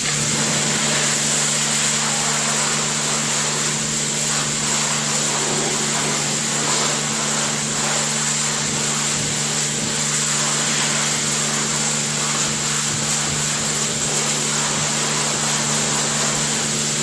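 Pressure washer switching on abruptly and running steadily: a loud, even hiss of the water jet striking the front of a Fendt 724 tractor, over a steady low hum from the washer's pump motor.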